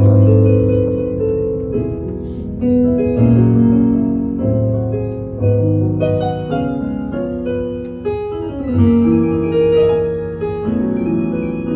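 Solo piano music: slow, sustained chords with no singing.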